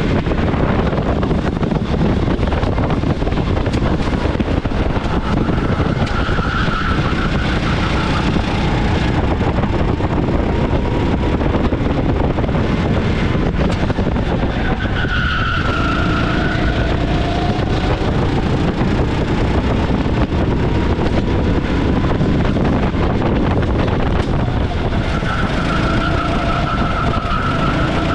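Onboard sound of a 390 cc go-kart engine running hard, its pitch rising and falling through the corners and straights. Tyres squeal briefly about three times, roughly six, fifteen and twenty-five seconds in.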